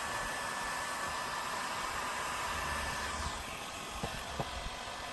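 Heat gun blowing with a steady hiss, warming a sticker to loosen it. It eases off a little after about three seconds, and a couple of light clicks come near the end.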